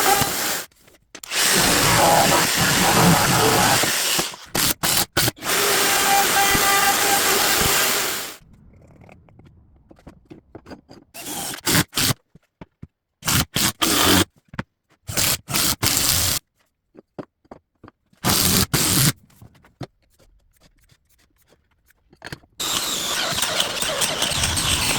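Woodworking power tools running in several short bursts that start and stop abruptly, with a quieter stretch of brief clicks and handling knocks in between.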